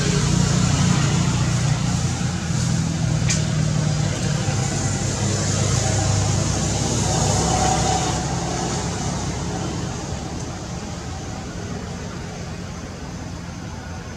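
A motor vehicle engine running close by as a steady low hum, fading away over the last several seconds. A single sharp click sounds about three seconds in.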